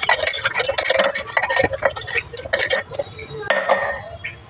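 Chunks of raw guava knocking and rattling against the inside of a glass jar as it is shaken to coat them in chilli powder and salt: a quick run of knocks that thins out after about three seconds, with one last short burst.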